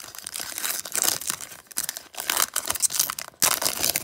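Plastic wrapper of a baseball card pack crinkling and tearing as it is ripped open by hand, in irregular crackly rustles.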